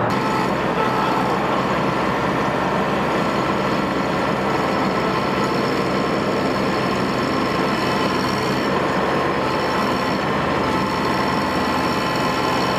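Bobcat mini excavator's diesel engine running steadily, with a faint high whine that drops out briefly twice.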